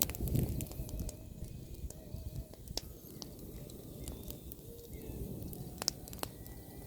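Bonfire of pruned apple branches crackling, with sharp pops at irregular intervals over a low rumble.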